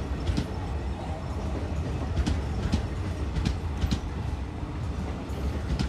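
Passenger coaches of an express train passing on the track: a steady low rumble of wheels on rail, with repeated sharp clicks as the wheels cross rail joints.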